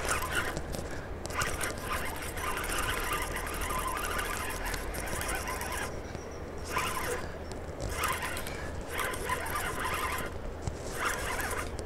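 Spinning reel being cranked under load as a hooked fish is played, a scraping mechanical sound in long runs with short breaks about six, seven and a half, and ten and a half seconds in.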